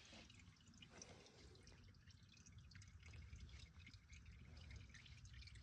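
Faint dripping and trickling of the last of the old engine oil draining out into the catch pan.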